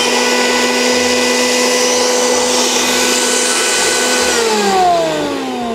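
Euromil Compact electric grain mill's 1 kW high-speed motor running empty with a steady whine. About four seconds in it is switched off, and the pitch falls as it spins down.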